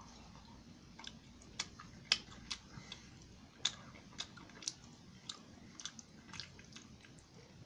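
A person chewing a bite of Colby Jack cheese stick with the mouth close to the microphone: irregular sharp wet clicks and smacks, about two a second.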